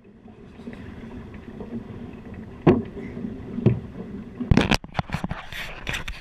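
Muffled rubbing and handling noise from an action camera with its lens pressed against a textured surface, over a low steady rumble. Two dull thumps come a second apart near the middle, then a quick run of knocks and clicks as the camera is moved.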